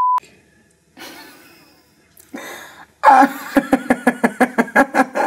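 A short censor bleep at the very start, then, about three seconds in, a woman breaks into loud, rapid, rhythmic laughter.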